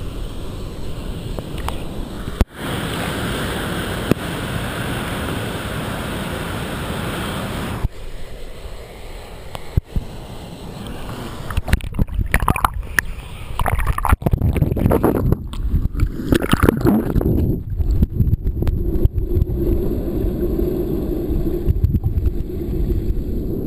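Creek water rushing and sloshing close to the microphone, with irregular knocks and splashes partway through.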